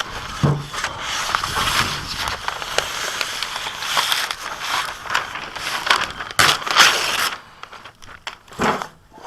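Sheets of paper crinkling and rustling as they are handled and spread out, with many small crackles; the rustling dies down near the end.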